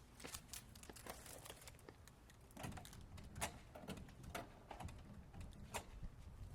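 Faint, irregular clicks and light rustling over a low rumble.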